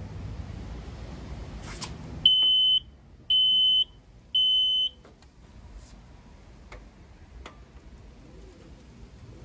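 Drive Medical Scout mobility scooter's beeper sounding three short, high-pitched beeps about a second apart, just after a click. The scooter's warning beeps, missing when it was faulty, are working again, a sign that power is reaching its electronics.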